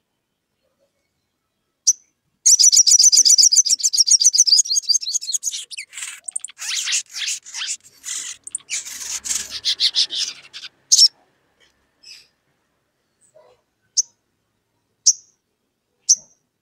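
Olive-backed sunbird calling: a fast, high trill about three seconds long, then a stretch of scratchy chattering, then a few single sharp chip notes about a second apart.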